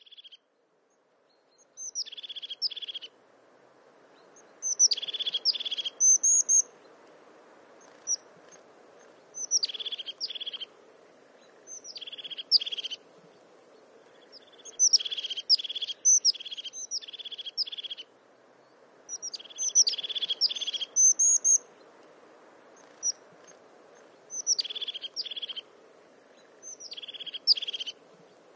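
A songbird singing short phrases again and again, one every two to three seconds. Each phrase opens with a couple of high notes and goes into a quick run of lower notes. A faint steady background hiss runs underneath.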